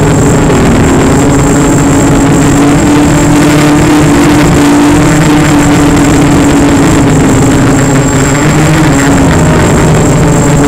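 Motor and propeller of an FPV model aircraft, heard from its onboard camera: a loud, steady buzzing drone, its pitch dipping briefly about eight seconds in before rising again.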